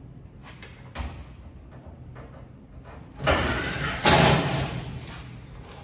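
Ryobi cordless drill/driver driving a screw up through the sheet-metal inner wheel tub: a sharp knock about a second in, then a loud run of about two seconds starting around three seconds in, loudest just after four seconds.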